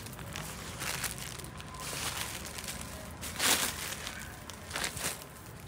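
Clear plastic bags around packaged clothing crinkling as they are handled, with louder rustles about three and a half seconds in and again near five seconds.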